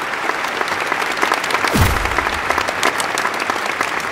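Applause: steady clapping throughout, with one brief low thump about two seconds in.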